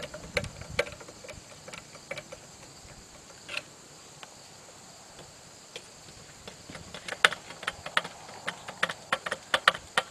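Sharp metal clicks and knocks from adjusting the height of a swing blade sawmill's log bunk: a few near the start, then coming quickly and irregularly over the last few seconds.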